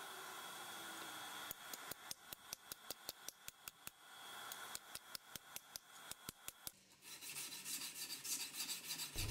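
Light mallet blows on a brick block, about three a second, then from about seven seconds in, back-and-forth rasping strokes of a sanding stick on the steel file-knife blade during finish sanding.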